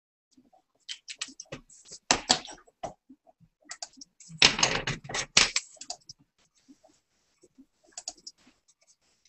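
Two quick flurries of sharp clicks and clatter, the first about two seconds in and a louder, denser one about four and a half seconds in. Scattered fainter clicks fall around them.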